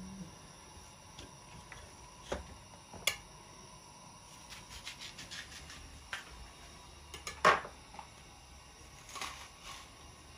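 Scattered light clicks and knocks, with a quick run of small ticks around the middle and one louder knock about seven and a half seconds in.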